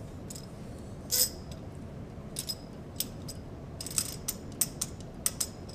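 Wrenches clinking on the metal nuts of a coaxial cable connector as its outer body is torqued down with the back nut held still: a string of short, sharp metallic clicks at irregular intervals, closer together in the second half.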